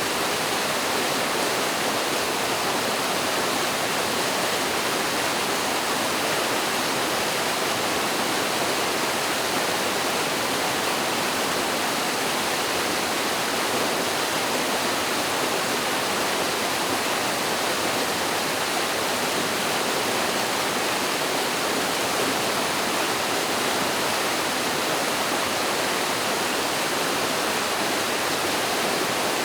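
Mountain stream cascading over a small waterfall: a steady, unchanging rush of water.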